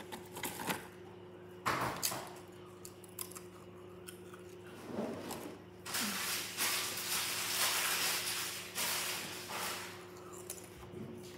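Handling noises close to the microphone: a few knocks, then a long stretch of rustling, with a faint steady hum underneath.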